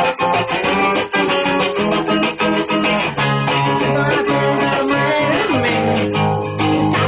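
Guitar-led music with bass. It opens with quick plucked notes, moves into longer held notes, and has a note sliding down in pitch about five and a half seconds in.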